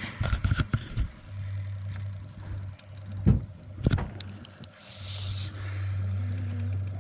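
Handling noise from a spinning rod and reel being worked during a fight with a fish: a cluster of sharp knocks in the first second and two loud thumps a little past three seconds and just before four seconds, over a steady low hum that drops out briefly between them.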